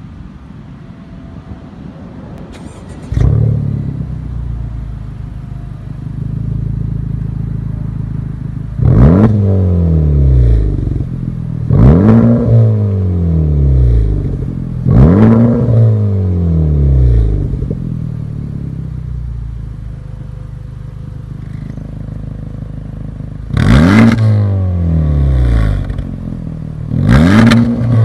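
Honda Civic Type R FK8's turbocharged 2.0-litre four-cylinder, breathing through an Fi Exhaust catless downpipe and valved cat-back with triple tips. It fires up suddenly about three seconds in and idles. It is then revved in five quick blips, each rising sharply in pitch and falling back to idle.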